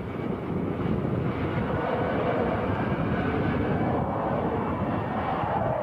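Twin-engine Russian fighter jet's engines, heard from the ground as the jet hangs nose-up in a near-vertical bell (tail-slide) manoeuvre: a steady rushing rumble that grows a little louder and higher from about two seconds in.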